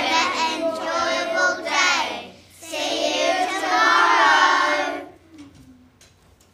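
A group of children singing together in unison in two phrases, with a short break about two seconds in, the singing ending about five seconds in.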